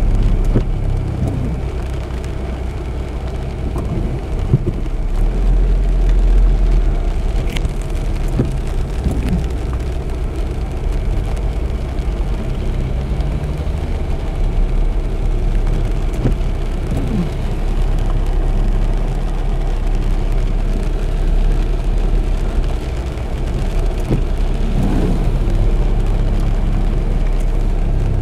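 Inside a car's cabin: rain falling on the car over the steady low rumble of the engine and tyres rolling on a wet, flooded road.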